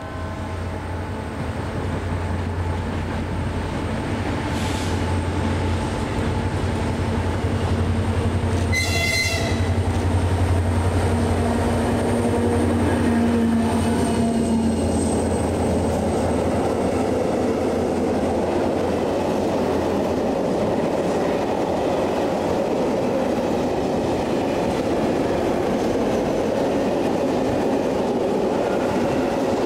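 Freight train passing close by. A low steady drone from the locomotive is heard as it approaches, with a short shrill tone about nine seconds in. Then a long string of open freight wagons rolls past with a steady rumble.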